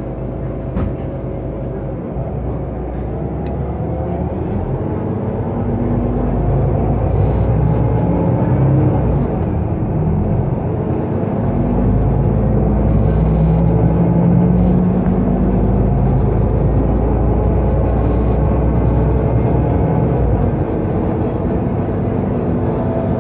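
Solaris Urbino 12 city bus engine running under way, its pitch and loudness rising slowly over the first several seconds as it pulls away, then holding steady with a low rumble. The level dips slightly near the end.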